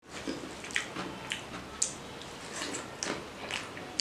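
Fingers squishing and mixing boiled rice with fish curry on a banana leaf, close to the microphone: irregular wet clicks and smacks about every half second.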